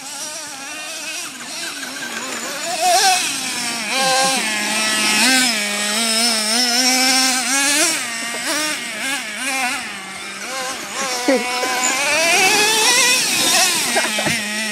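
Small nitro engines of RC monster trucks running and revving up and down as the trucks drive, with one note holding steadier underneath.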